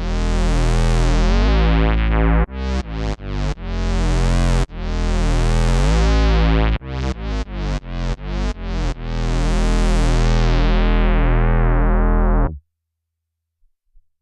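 Bass guitar played through an MXR MB301 Bass Synth pedal, giving a low synth-bass tone. Quick runs of short repeated notes alternate with long held notes whose brightness sweeps away as each note sustains. The notes stop abruptly about a second and a half before the end.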